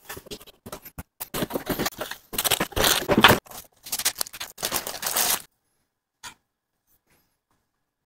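Unboxing noises: cardboard box flaps and clear plastic wrap being handled, an irregular rustling and crinkling with small scrapes. It stops about five and a half seconds in, leaving only one faint click.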